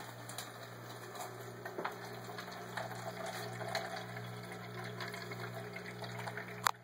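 Liquid trickling in a thin stream from an automatic bartender's pour spout into a plastic cup, over a steady low hum, with a few light ticks and one sharp click near the end.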